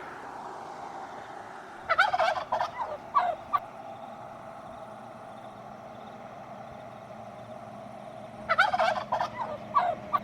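A fowl calling: two bursts of rapid, warbling calls about six seconds apart, over a steady background hum.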